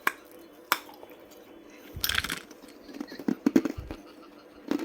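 Ice being bitten and crunched between the teeth: two sharp clicks, then a crunching bite about two seconds in, followed by clusters of crisp cracks as the ice is chewed.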